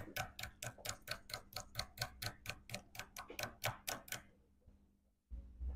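Rapid, even mechanical clicking, about five clicks a second, that stops about four seconds in. A low rumble follows near the end.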